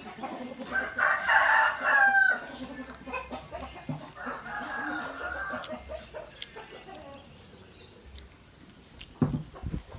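A rooster crows loudly about a second in, one drawn-out call ending in a quick bend in pitch, and a fainter second crow follows a few seconds later. A few low knocks come near the end.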